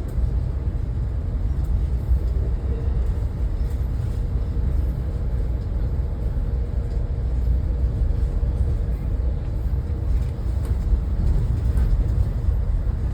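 Steady low rumble of a moving road vehicle, with no sudden events.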